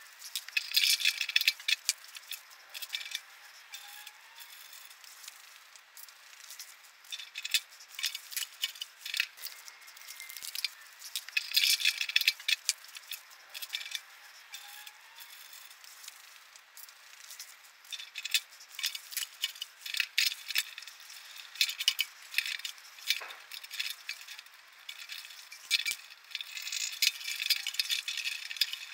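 Rattling and clinking as a V-belt is worked over the pulleys of a bandsaw's jackshaft drive and hands knock against the sheet-metal stand: quick, irregular clusters of rattles, thin and tinny.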